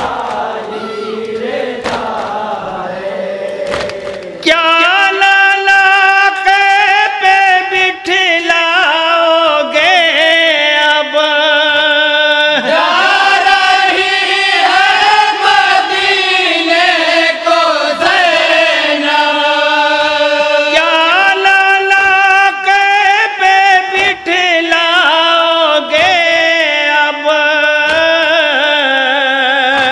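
A group of men chanting a Urdu noha, the Shia lament: a lead voice carrying the melody with others singing along, with a wavering, drawn-out line. The chant is quieter for the first few seconds, then jumps up in loudness about four and a half seconds in and stays strong.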